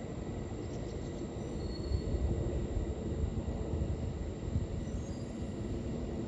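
The CFM LEAP-1B turbofan engines of a Boeing 737 MAX 8 airliner climbing out after takeoff, heard from below as a steady low rumble.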